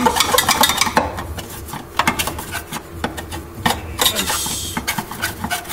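Undercoat being scraped off a car's steel underbody by hand: irregular metallic scrapes and knocks, with one longer, hissing stroke about four seconds in.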